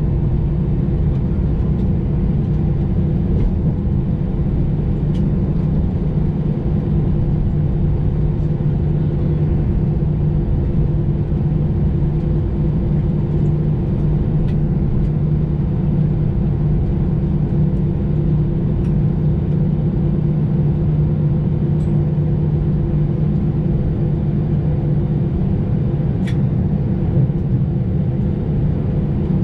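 Airbus A320 cabin during taxi: the steady low rumble and hum of the jet engines and aircraft running at taxi power, with a few faint ticks.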